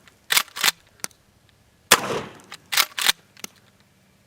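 Winchester Model 1300 Featherweight 12-gauge pump-action shotgun firing bird shot. Its slide clacks back and forward, one shot rings out about two seconds in, and the slide clacks back and forward again.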